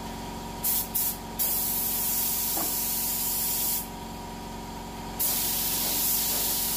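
Spray gun with a 1.2 mm nozzle spraying clear coat, a compressed-air hiss: a few short trigger pulls about a second in, then a long pass of a couple of seconds, a pause, and another pass starting about five seconds in. A steady hum runs underneath.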